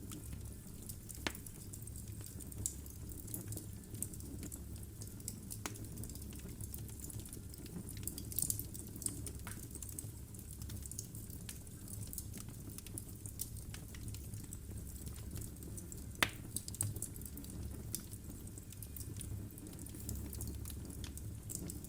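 Logs burning in a fireplace, crackling with irregular sharp pops over a low, steady rumble. One louder pop comes about two-thirds of the way through.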